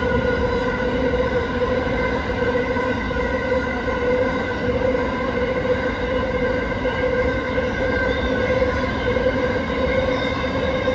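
Grain hopper wagons of a freight train rolling steadily past. Wheels rumble on the rail under a steady ringing tone that holds throughout.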